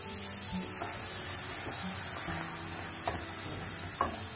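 Wooden spatula stirring diced potato, carrot and peas in hot oil in a kadai, with a steady sizzle and a few taps and scrapes against the pan, the sharpest about four seconds in.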